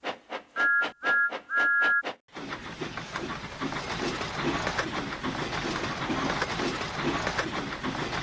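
Steam train sound effects. First a quick, even run of sharp clicks with three short two-note steam whistle toots. Then a steam locomotive running, with a steady hiss and a low chuff about twice a second.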